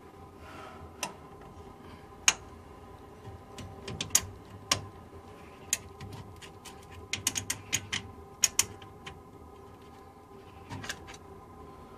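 Hand tools clicking and tapping against the steel radius arm and chassis mounting of a Land Rover Defender, in irregular sharp metallic clicks with a quick run of them about seven to nine seconds in.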